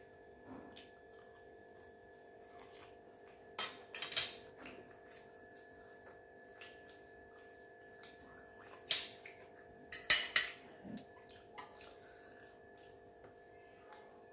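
Close-up eating and tableware sounds: short sharp clinks and crunches in two clusters, about four seconds in and again from about nine to ten and a half seconds, over a faint steady hum.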